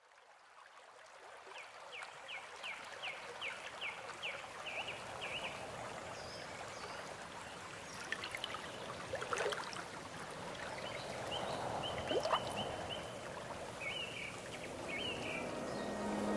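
An ambient soundscape fading in: a steady wash of noise with a run of quick, high chirps in the first few seconds, and a few more chirps and soft sweeps later. A low held tone of the song's music comes in near the end.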